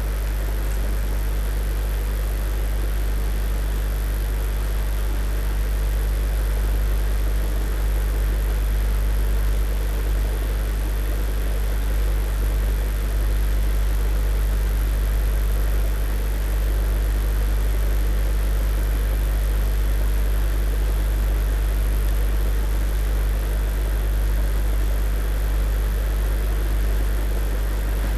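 A steady low hum with an even hiss over it that holds unchanged throughout, with no distinct tool clicks or knocks.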